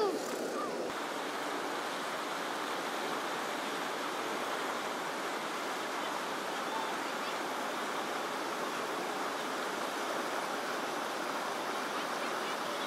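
Steady rushing of whitewater rapids in an artificial slalom channel.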